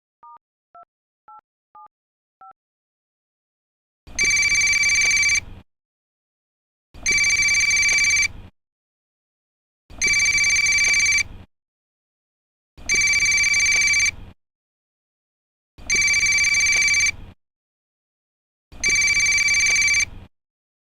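Six short, faint two-tone keypad beeps as a phone number is dialled, then a loud electronic phone ringer ringing six times, each ring about a second and a half long and about three seconds apart.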